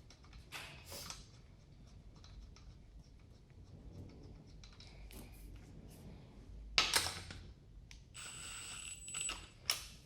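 Small metallic clicks of a lug nut and socket being handled, then a Milwaukee M18 Fuel impact driver run in short bursts, with a sharp burst about seven seconds in and a longer run of about a second and a half near the end, driving a lug nut back onto its wheel stud.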